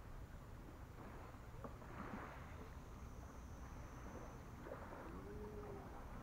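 Small waves washing softly on a gravel lakeshore, in faint swells, over a low steady wind rumble on the microphone. A brief faint call comes near the end.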